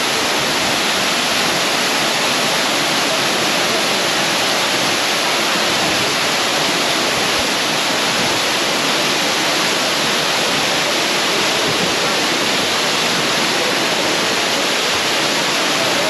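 Waterfall pouring into a rock pool, heard close up: a loud, even rush of falling and splashing water.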